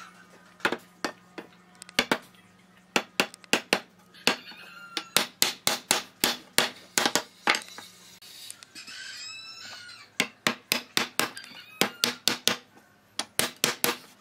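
Wooden mallet knocking on a panel of edge-glued pine boards, sharp taps in quick runs of about three a second, tapping the boards level. A rooster crows once about nine seconds in.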